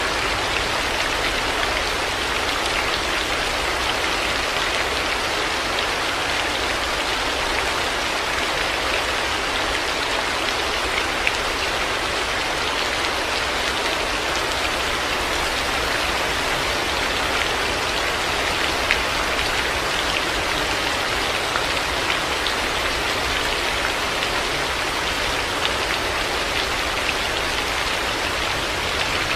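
Heavy rain falling steadily, an even hiss of rain on hard surfaces with scattered individual drop ticks and a few slightly louder drips.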